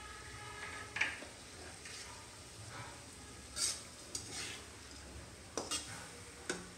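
Fingers mixing rice and beef curry on a ceramic plate: soft squishing with a few short sharp clicks against the plate.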